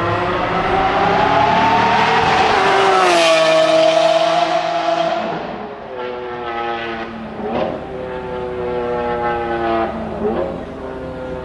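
Lamborghini Aventador's V12 at full throttle passing close by, its pitch dropping as it goes past, then accelerating away and fading, with two sharp upshifts.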